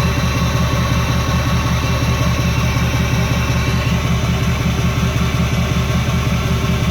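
Ford 6.4 L Power Stroke V8 turbodiesel idling steadily with the DPF and EGR deleted. It runs smoothly while burning oil and blowing thin white smoke at idle, which the owner puts down to bad turbo seals.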